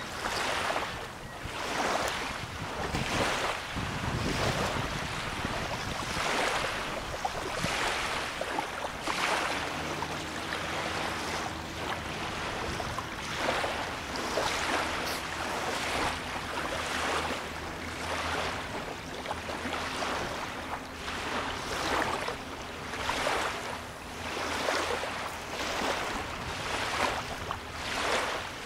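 Small lake waves lapping on a sandy shore, a soft wash about once a second. From about ten seconds in, the low steady hum of a distant boat motor runs beneath the waves until near the end.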